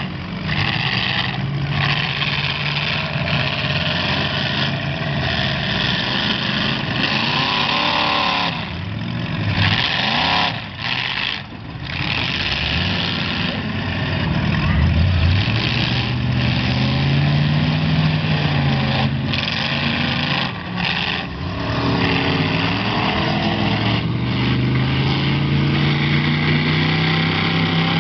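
Demolition derby cars' engines running hard and revving, the pitch repeatedly climbing and falling as the cars accelerate and back off.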